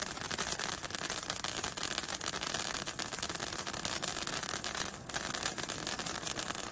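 Handheld sword-shaped firework fountain burning: a steady hiss thick with fine crackling as it sprays sparks.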